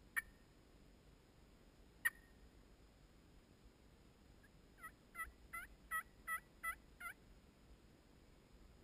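Turkey calling: two short, sharp notes about two seconds apart, then a run of about eight yelps, roughly three a second, each dipping in pitch, over a little more than two seconds.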